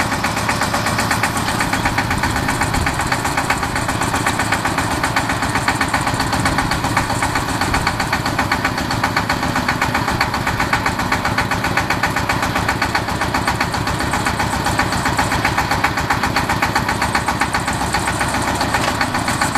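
Small diesel engine of a four-wheel boom lift running steadily with a fast, even chugging, powering the hydraulics while the lift's outrigger legs fold up.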